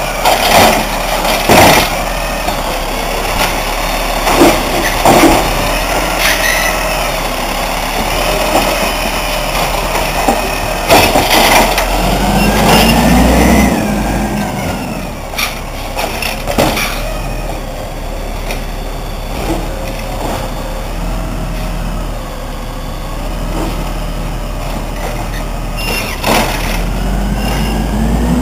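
Peterbilt refuse truck with a Wayne Curbtender automated side-loader body: the engine runs loud and revs as the hydraulic arm grabs, lifts and dumps a wheeled trash cart, with repeated clanks and bangs of the cart and arm. Near the end the engine revs up as the truck pulls away.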